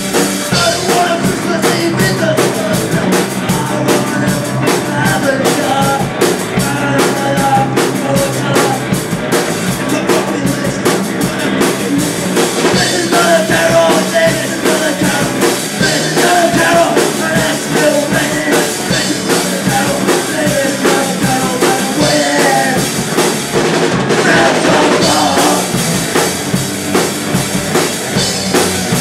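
Punk rock band playing live: electric guitars, bass and a drum kit driving a fast beat. A singer comes in on vocals about halfway through.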